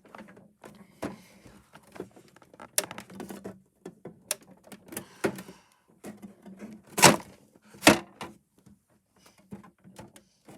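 Rummaging through a pile of fidget toys and small objects: irregular knocks, clicks and clatter, with two louder thuds about seven and eight seconds in.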